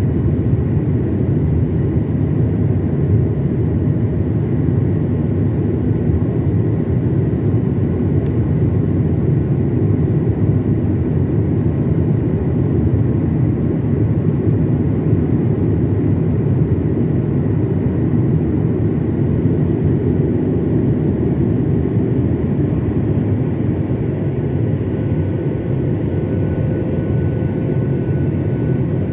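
Jet airliner's engines and airflow heard from inside the passenger cabin during the climb after takeoff: a loud, steady, deep rumble with a faint high whine, and a second thin tone joining about four seconds before the end.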